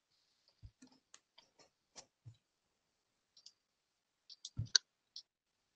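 Faint, scattered clicks with a few soft low knocks, and a cluster of clicks with a louder low thump about four and a half seconds in: mouse and desk handling picked up through a video-call microphone.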